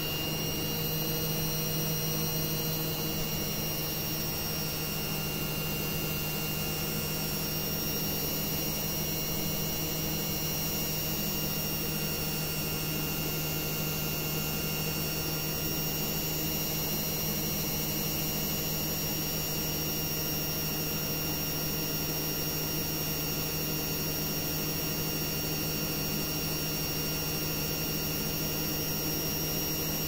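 LG WD-10480NP front-loading washing machine on its spin cycle: the drum spinning at a steady speed, giving a steady hum with a thin whine above it.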